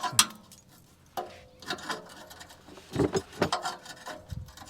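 Hand tools clinking and knocking against metal exhaust parts: a handful of sharp, irregular clanks, with a dull thump near the end.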